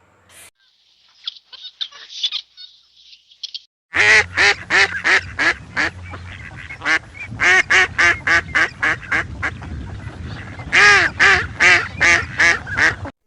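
Faint high chirping, then from about four seconds in a run of loud honking bird calls, two to three a second, cutting off just before the end.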